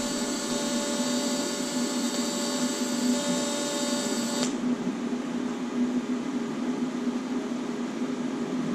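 TIG welding arc running with a steady high-pitched whine over a low hum, cutting off suddenly about halfway through as the arc is broken. The low hum carries on alone afterwards.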